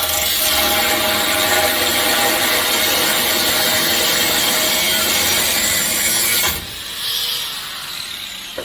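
Power tool cutting steadily through a steel exhaust stack pipe. The cutting is continuous and loud with a steady whine, and stops about six and a half seconds in.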